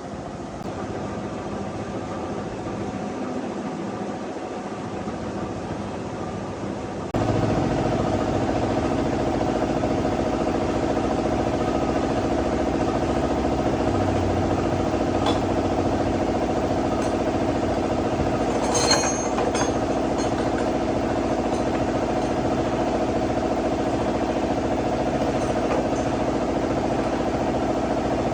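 A steady mechanical hum from an engine or motor running at an even speed. It becomes suddenly louder about seven seconds in, with a brief metallic clatter about two-thirds of the way through.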